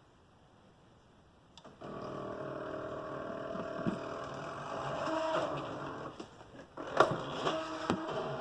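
SteppIR antenna element stepper motors running in a controller motor test: a steady whirring whine of several tones. It starts about two seconds in, after a click, shifts pitch partway through, and has a few sharp clicks near the end. The motor running shows that the repaired stepper driver chips are working again.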